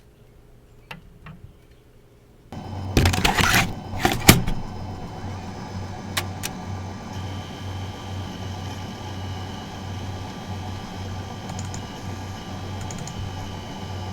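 Vintage Macintosh computer hardware running: two small clicks, then about two and a half seconds in a machine hum starts with two loud bursts of clattering noise, settling into a steady mechanical hum with a pulsing low tone.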